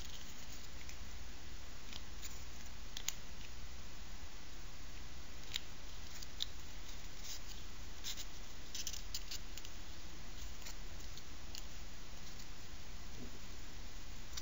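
Faint, scattered crackles and rustles of a thin painted paper strip being bent and curled by hand into a quill loop, over a steady low hum.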